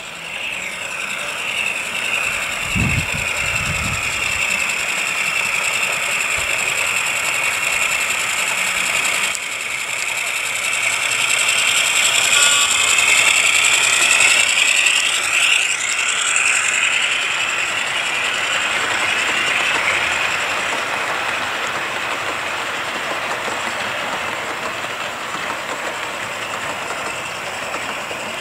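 DCC sound-fitted model Class 35 Hymek diesel locomotive running past, its decoder's engine sound coming from a small onboard speaker together with the running of its wheels on the track. It grows louder as it passes close, about halfway in, then fades away.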